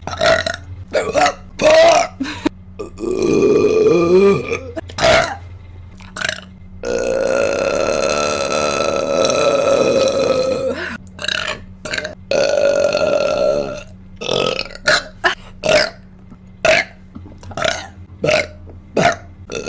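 A woman burping over and over: many short burps, a wavering one a few seconds in, and one long drawn-out burp of about four seconds held at a steady pitch near the middle.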